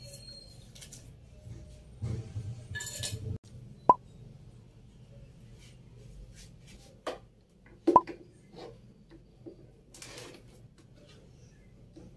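Things being handled and set down on a desk. About two seconds in there is a second or so of rustling, then two sharp clinks about four seconds apart, with lighter taps as notebooks and a pen go down on the desktop.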